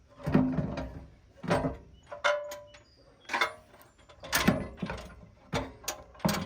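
Heavy rear bumper being shifted against the Jeep Wrangler's frame: an irregular series of about seven short metal scrapes and clunks, roughly one a second, some ringing briefly.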